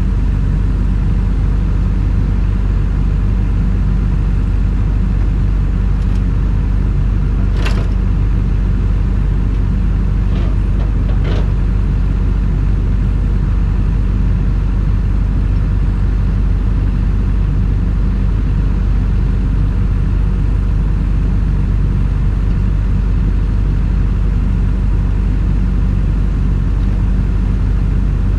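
Excavator's diesel engine running steadily at a constant speed, with a couple of brief knocks about 8 and 11 seconds in.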